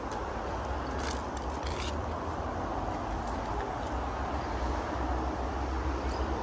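Steady outdoor background noise with a low rumble, and a few faint clicks about a second in.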